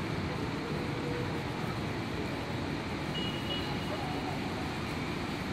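Steady city traffic rumble and urban background noise, with a faint short high tone a little after three seconds in.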